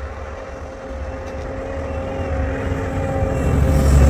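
Fat Truck amphibious all-terrain vehicles driving on snow: a steady low engine rumble with a held hum, growing louder as one comes up close.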